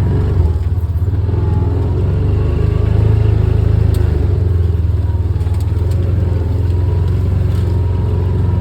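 Yamaha Rhino side-by-side engine running steadily while driving: a loud, low drone with a fast pulsing beat.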